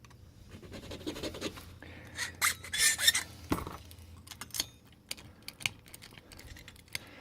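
A hand file rasping in a few short strokes across the cut of an MS2 key blank during key impressioning, with light metal clicks and taps in between, the loudest strokes about two to three seconds in.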